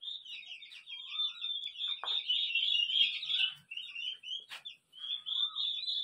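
A flock of two-month-old turkey poults peeping, many high-pitched calls overlapping without a break. A couple of short knocks sound about two seconds in and again around four and a half seconds.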